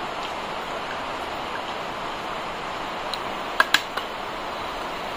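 Steady background hiss, with a small steel bowl set down on a steel thali plate a little past halfway: two sharp metallic clinks in quick succession.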